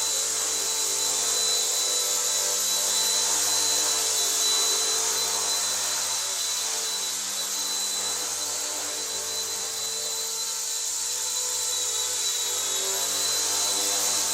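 RC ERA C138 Bell 206 1/33-scale micro RC helicopter in flight: its small electric motors give a steady high whine over the whir of the rotors. The sound eases slightly midway and comes back up near the end.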